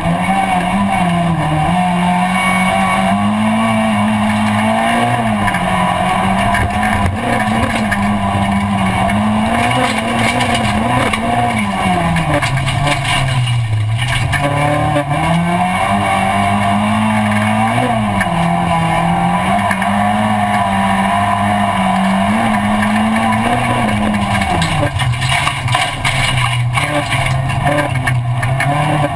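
A rallycross race car's engine heard from inside the caged cockpit, running hard. Its pitch climbs and drops again and again as the car accelerates and slows around the circuit, with a long drop about halfway through.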